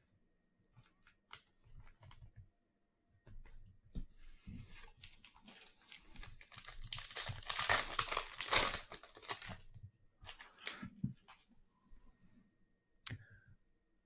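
A foil trading-card pack being torn open and its wrapper crinkled, loudest for a few seconds in the middle, with light clicks and rustles of card handling before and after.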